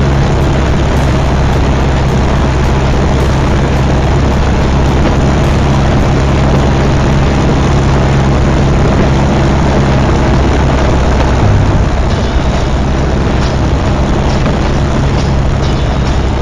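Single-engine propeller plane's engine and propeller heard loud inside the cockpit, running steadily as a dense drone with a deep steady hum, its tone shifting slightly about twelve seconds in. The plane is a Piper PA-28 Warrior with a four-cylinder Lycoming engine.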